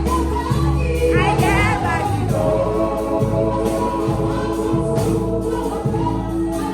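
Gospel music: a choir or group singing over a steady bass line and a regular beat.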